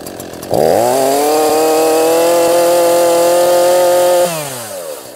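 ECHO two-stroke chainsaw idling briefly, then opened to full throttle about half a second in. It runs at a steady high rev for nearly four seconds and drops back toward idle near the end. The saw is being run up while it clears out a flood.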